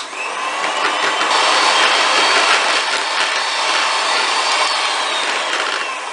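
Electric hand mixer switched on and running steadily, its beaters whipping egg white to a meringue as the yolk is beaten in, in a plastic bowl. It starts suddenly and eases off a little near the end.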